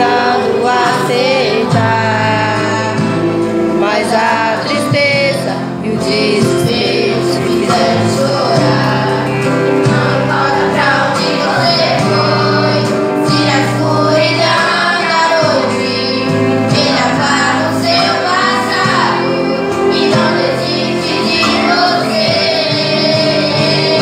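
Two children singing a worship song into microphones, over continuous instrumental accompaniment.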